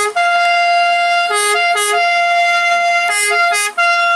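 Italian ambulance's siren sounding a repeating pattern: a long steady tone broken by two short lower notes, about every two seconds.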